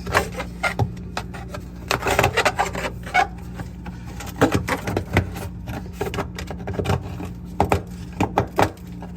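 A hand tool chipping and scraping at solid ice built up inside an over-frosted refrigerator, in irregular short scrapes and knocks. A steady low hum runs underneath.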